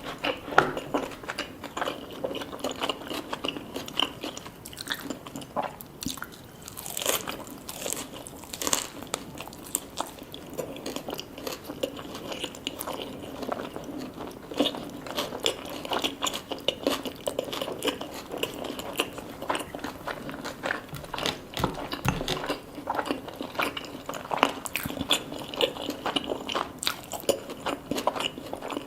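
Close-miked chewing and biting of a person eating, with frequent crisp crunches and wet mouth clicks.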